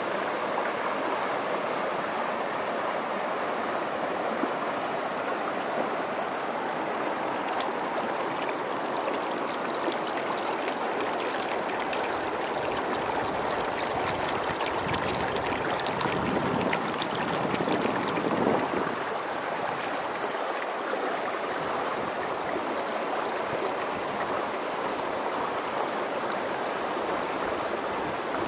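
Shallow, fast mountain stream running over stones and rocky riffles: a steady rush of water, swelling a little louder for a few seconds past the middle.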